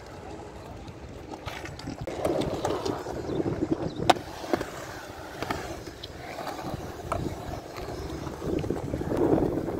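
Skateboard wheels rolling on a concrete bowl, the rumble swelling twice as boards pass close, with scattered clicks and one sharp clack about four seconds in.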